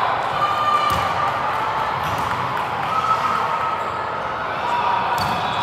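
Echoing background din of a volleyball gym between rallies: indistinct voices of players and spectators, with a few sharp thumps of balls bouncing on the hard court floor.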